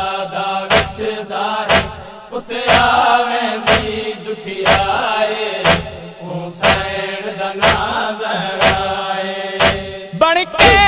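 Voices chanting a noha, a Shia lament, in long drawn-out notes over a sharp beat that falls about once a second. Near the end a voice comes in with a wavering sung line.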